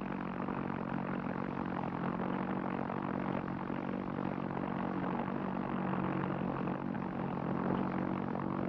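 Propeller aircraft engine running steadily in flight: an even, low hum that holds one pitch throughout.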